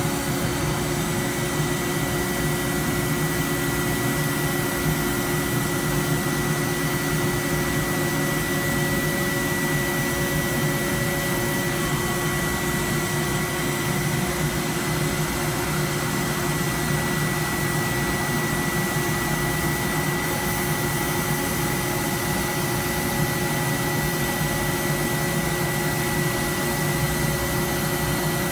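Industrial machinery running steadily: a constant noisy hum with a steady high whine.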